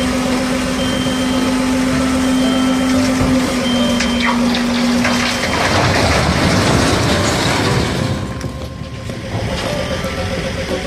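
IVECO tipper truck's engine running with a steady whine as the dump bed tips up, then, about five and a half seconds in, its load of large stone slabs slides off and crashes to the ground in a long rumbling crash that fades over the last few seconds.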